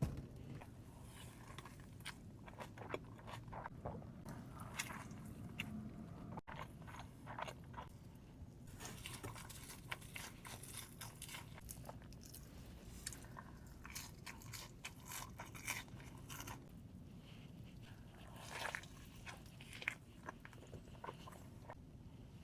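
Close-miked eating: a person biting into and chewing fast food, with irregular crunches and small crackles throughout.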